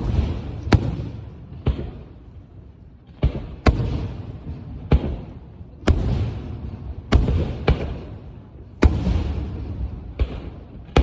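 Fireworks going off: about a dozen sharp bangs at uneven intervals of half a second to a second and a half, each followed by a fading rumble and crackle.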